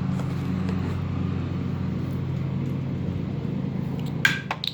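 A steady low mechanical hum, like a motor running, with a few sharp clicks about four seconds in.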